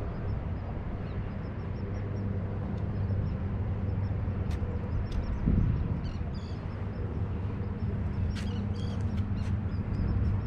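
Steady low outdoor rumble with a faint, fast, even ticking above it and a few sharp clicks in the second half.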